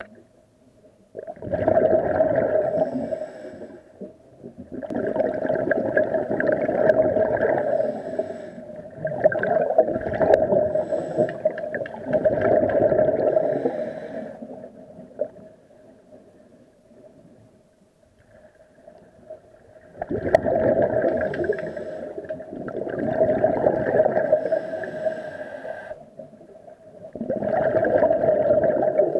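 Scuba exhaust bubbles rushing out of a regulator, recorded underwater: the diver's exhaled breaths come as surges of two to three seconds with short pauses between them for inhaling, about seven in all, with one longer gap of about five seconds halfway through.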